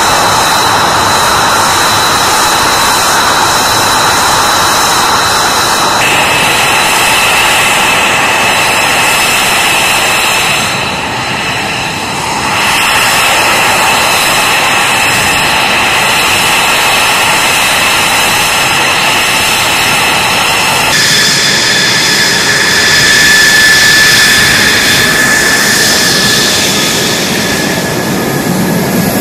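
Fighter jet engines running loud and steady: a rushing noise with high, steady whining tones over it. The tone changes abruptly about six seconds in and again about twenty-one seconds in.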